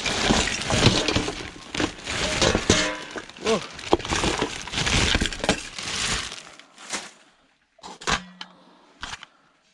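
Plastic bin bags rustling and crinkling as they are pulled off and handled, dying away about six seconds in, followed by a few light knocks.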